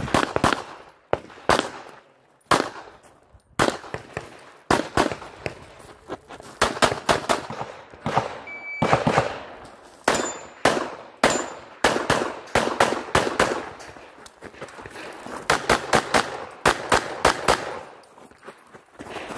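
Semi-automatic pistol fire on a competition stage: sharp shots in fast strings and pairs, broken by short pauses as the shooter moves between firing positions.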